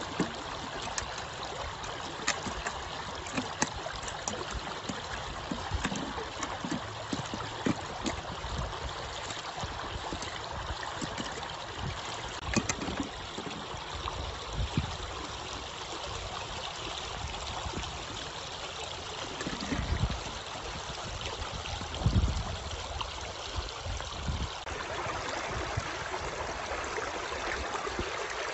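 Rushing stream water running steadily over rocks, with scattered small clicks and knocks from close-up handling, and two dull low thuds about two-thirds of the way through.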